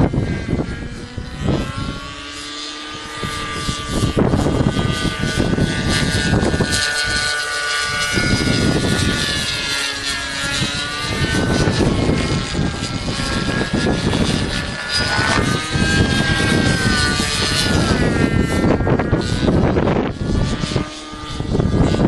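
Radio-controlled nitro helicopter in flight, its Thunder Tiger 53 two-stroke glow engine and rotor buzzing with a pitch that keeps wavering up and down as it manoeuvres. Gusty wind rumbles on the microphone underneath.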